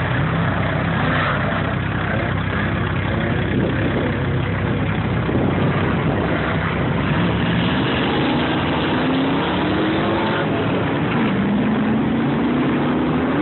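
Off-road race car's engine running hard over a dense rushing noise. In the second half its pitch climbs, drops suddenly once as a gear is changed, then climbs again.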